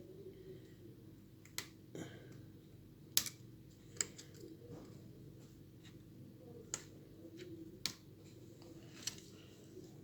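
Scattered small clicks and taps, about seven in ten seconds, as the iPhone 7 Plus display's flex-cable connectors are pried off their sockets with a tool.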